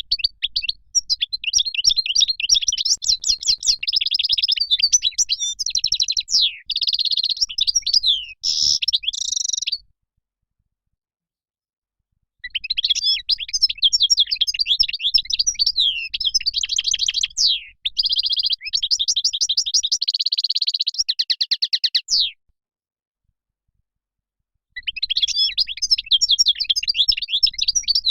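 European goldfinch song: fast twittering and trilling phrases with buzzy notes, in three long bouts of about ten seconds, each broken off by a couple of seconds of complete silence.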